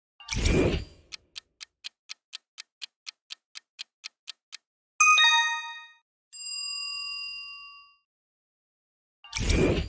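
Quiz-show sound effects: a short whoosh, then a clock-like countdown ticking about four to five times a second. The ticking stops for a bright chime and a single ringing ding that fades away, then another whoosh comes near the end and the ticking starts again.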